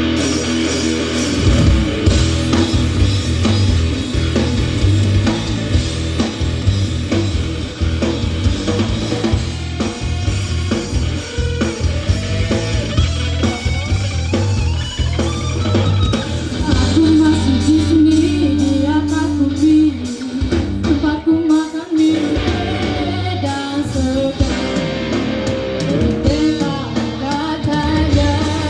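Student rock band playing live: electric guitars and a drum kit, with a vocalist singing. The drums come in about a second and a half in, and the bass and drums drop out briefly near 21 seconds before the band carries on.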